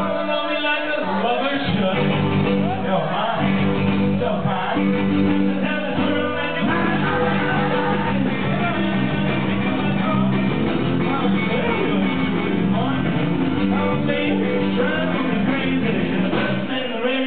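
Live band music: a male singer sings into a microphone over an electric guitar and drums.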